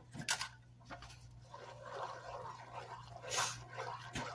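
Spoon gently stirring an egg into cooked elbow macaroni and evaporated milk, a wet squelching with a few sharp taps, the loudest about three seconds in. A steady low electrical hum sits underneath.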